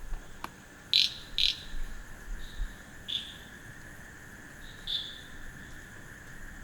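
Night chorus of crickets and frogs: a steady high insect drone under short, sharp calls. The two loudest calls come close together about a second in, and fainter ones follow now and then.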